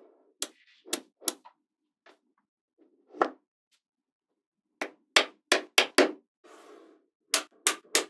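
Magnetic balls clicking sharply as blocks of them snap together and are set down: about a dozen crisp clicks, several in quick runs of three or four, with a short soft rattle of balls shifting in between.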